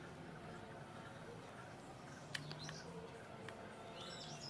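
Faint squishing of boiled potato being mashed by hand with onion, herbs and mustard oil in a steel bowl, with a few short, high bird chirps and one sharp click a little past halfway.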